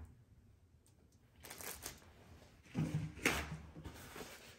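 Rustling and scraping from handling food at a kitchen counter, in two short bouts, the louder one about three seconds in.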